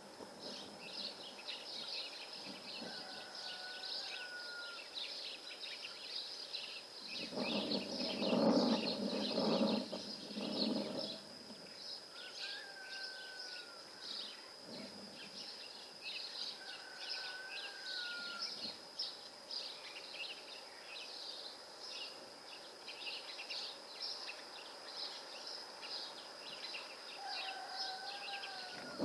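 Small birds twittering outdoors: a steady stream of short high chirps, with a short whistled call now and then. About a third of the way in, a louder, lower sound lasts for around three seconds.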